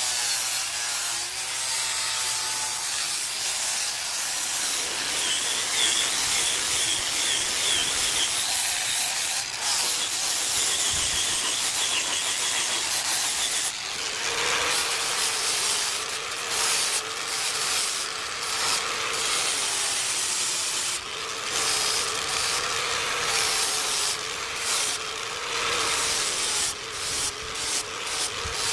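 Angle grinder grinding steel, a steady harsh grinding noise. In the second half the grinding breaks off briefly again and again as the disc comes on and off the work.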